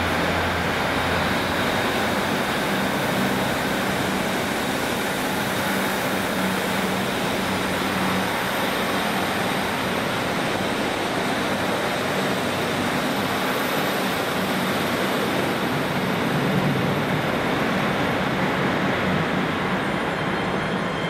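A pair of Class 156 Sprinter diesel multiple units pulling out of a station, their underfloor diesel engines running over a steady wash of wheel and rail noise.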